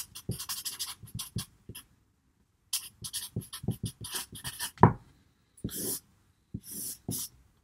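Felt-tip marker writing on paper: quick runs of short, scratchy pen strokes with brief pauses between letters, and one sharper tap about five seconds in.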